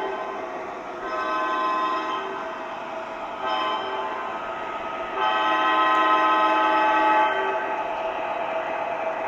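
Model locomotive's onboard sound system sounding the grade-crossing horn signal: the end of a first long blast, then another long blast, a short one and a final long one, over a steady whir of the running locomotive.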